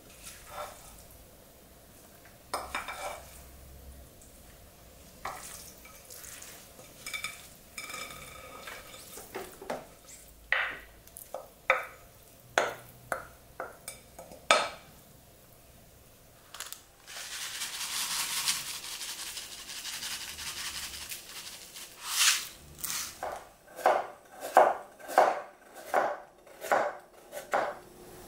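Kitchen handling sounds of a utensil and plastic lunchbox containers as broccoli is packed in: scattered clicks and knocks, a few seconds of steady hiss past the middle, then a quick run of about ten knocks, roughly two a second, near the end.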